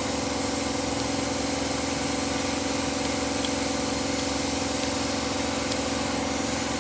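Wheel loader's diesel engine running steadily, an even hum with a hiss over it.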